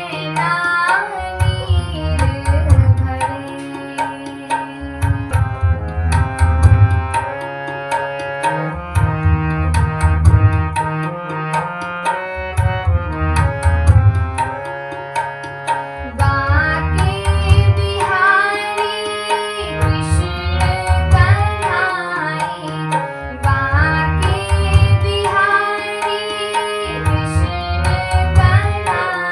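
Devotional bhajan music: tabla playing a steady repeating rhythm under a melody line that slides between notes. The melody grows busier and brighter about 16 seconds in.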